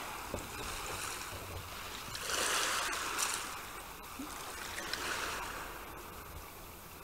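Surf sound effect: waves washing in, swelling about two seconds in and then falling away.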